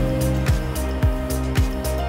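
Background music with a steady beat: a deep kick drum about twice a second under held notes and crisp high percussion.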